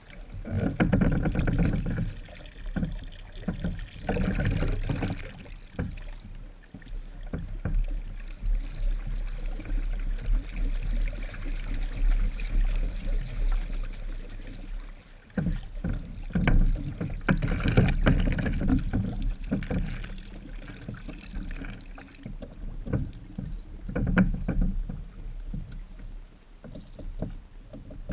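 Hand-powered homemade paddle wheel, with eight fiberglass-covered pine blades, churning the water: splashing and sloshing that comes in uneven surges every couple of seconds over a steady low rumble.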